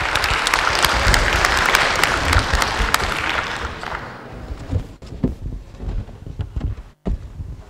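Audience applause with dense clapping, dying away about four seconds in. A few scattered low thumps follow.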